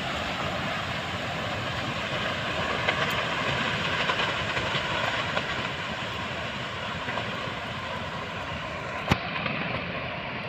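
Steady rushing of strong storm wind, with a sharp click about nine seconds in.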